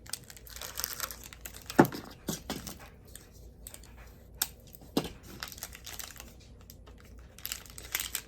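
Wrapped candy bars being handled on a cardboard box: plastic wrappers crinkling, with light clicks and taps, and a sharper knock about two seconds in and another about five seconds in.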